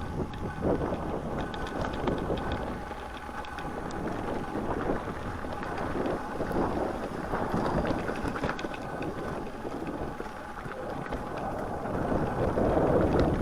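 Riding noise of a mountain bike on a snowy, frozen dirt trail: tyres over the rough ground and small clicks and rattles from the bike, with wind buffeting the microphone.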